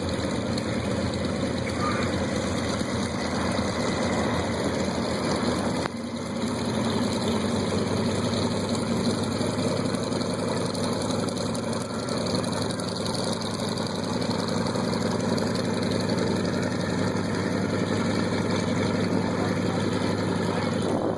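Piston-engined propeller aircraft running steadily, a low engine drone with a short dip in level about six seconds in.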